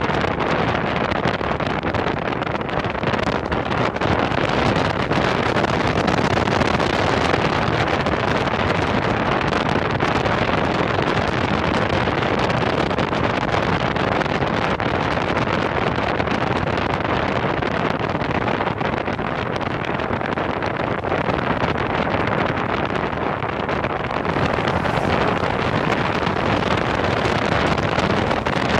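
Steady rush of wind over the microphone of a camera mounted outside a moving car, mixed with road noise.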